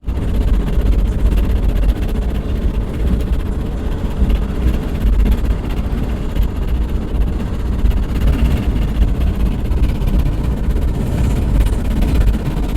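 Strong thunderstorm wind buffeting the microphone: a steady heavy rumble with a rushing hiss over it.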